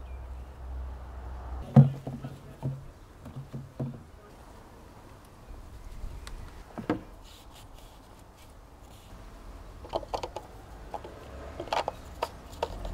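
Engine oil being poured from a plastic canister into an engine's oil filler, heard as scattered knocks and clicks of the canister against the filler neck over a low steady rumble. Near the end the filler cap is handled with a few sharper clicks.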